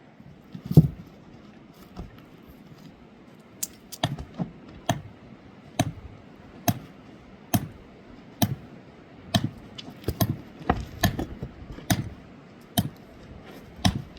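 Steady, repeated sharp knocks of a hand tool striking something hard, about one a second, with a heavier thud about a second in.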